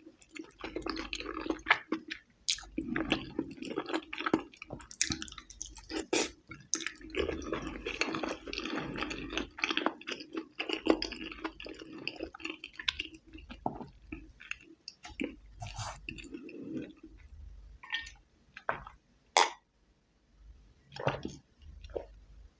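Close-up wet chewing of rice and chicken in red chilli sauce, with moist smacking and crackly mouth clicks for most of the stretch. It thins to a few separate clicks in the last few seconds.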